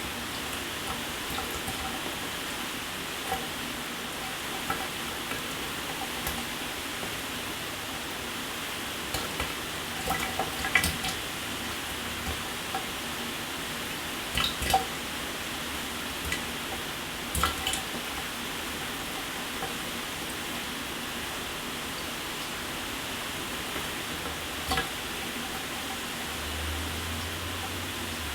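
Shower water running: a steady hiss of spray, with scattered sharp splashes and drips, a few of them louder and in small clusters.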